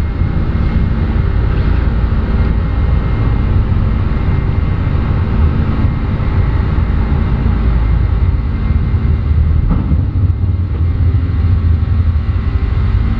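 Airbus A310's twin jet engines at takeoff power, a loud steady low rumble heard from inside the aircraft as it lifts off and climbs away.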